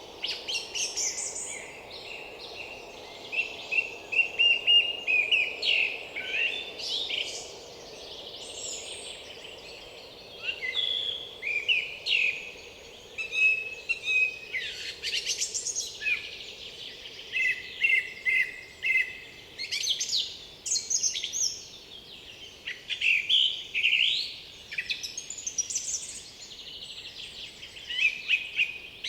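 Several songbirds singing and calling at once, overlapping whistled phrases, chirps and rapid trills, with no pause longer than a second or two. A faint steady low background rumble lies underneath.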